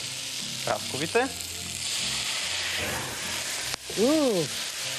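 Peaches sizzling in a hot frying pan, flambéed with ouzo; the spirit catches with a sudden flare about four seconds in. A short rising-then-falling vocal "ooh" follows the flare.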